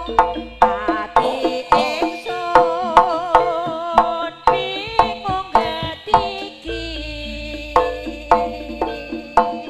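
Javanese jaranan ensemble music: frequent sharp hand-drum strokes over ringing pitched gongs and a wavering melodic line, with a deep low hum that drops out about a second in and returns near the end.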